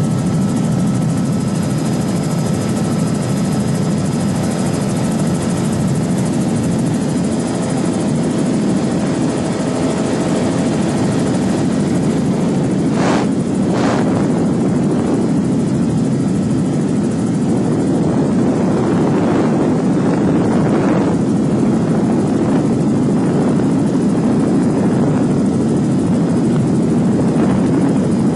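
Steady engine and propeller drone of an aircraft, heard from inside the cabin, with two brief clicks about halfway through.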